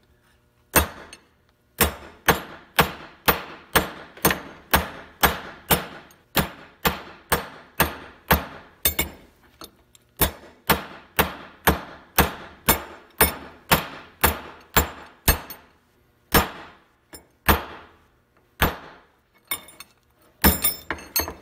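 Ball peen hammer of about four pounds pounding threaded bolts laid on a bench vise's anvil to batter the threads, about two blows a second, each with a short metallic ring. Near the end the blows slow to a few spaced strikes, followed by lighter taps.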